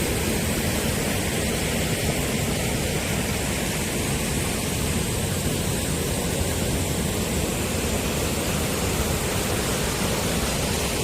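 Flowing stream water rushing, a steady unbroken noise.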